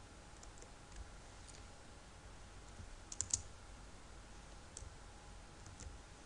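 Soft clicks at a computer, a quick cluster of three or four just past the middle and single ones later, over a faint steady electrical hum.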